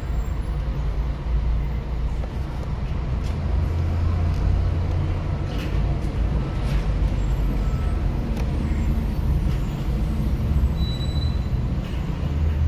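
Steady low rumble of road traffic and vehicle engines, with a few short knocks or clicks along the way.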